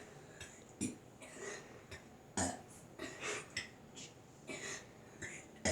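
A boy burping the letters of the alphabet: a string of short burps about a second apart, the loudest about halfway through.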